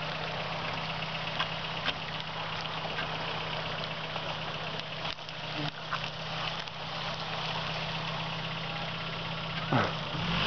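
Suzuki Vitara engine running steadily at low revs, with a few faint clicks and knocks.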